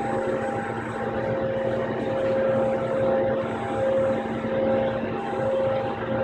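KUKA industrial robot arm moving, its electric drives giving a continuous mechanical hum with a few steady tones, the higher ones swelling and fading over and over as it moves.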